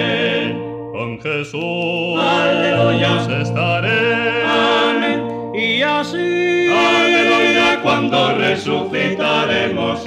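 Male vocal quartet singing a Spanish gospel hymn in close harmony, holding long notes with vibrato.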